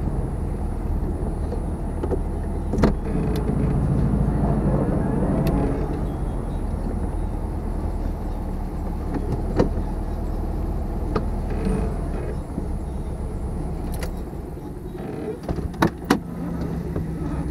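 VW Beetle's air-cooled flat-four engine running at low speed, heard from inside the cabin as a steady low rumble with occasional knocks. Near the end the engine sound drops away briefly and two sharp clicks follow close together.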